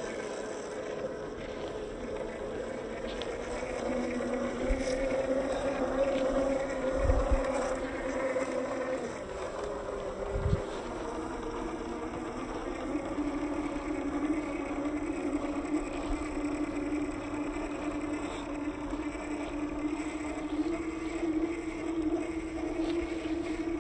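Electric drive of a 1/10 scale RC crawler (Hobbywing Fusion brushless motor and gearbox) whining as it drives, the pitch shifting with speed: higher for the first several seconds, dropping about nine seconds in, then rising slowly toward the end. Two dull thumps about seven and ten seconds in.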